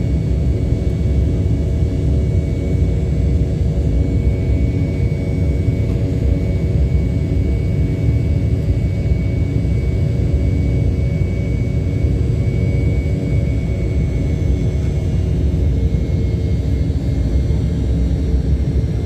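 Airliner jet engines running steadily, heard from inside the passenger cabin as a loud low rumble with a steady hum over it.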